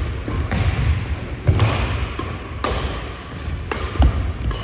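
Badminton rally in a large, echoing hall: rackets strike the shuttlecock about once a second, each hit a sharp crack with a trailing echo. Players' footsteps thud on the wooden court floor underneath.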